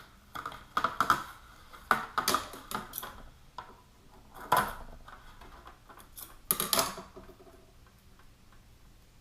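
Hands working with Velcro strips and an armour piece: scattered taps and clicks with a few short rustles, the louder ones about halfway through and again near seven seconds, then quieting down.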